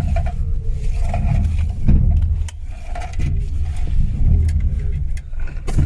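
1985 Mitsubishi Sigma running on its first test drive, a steady low engine and road rumble, with a couple of sharp knocks about two seconds in and near the end.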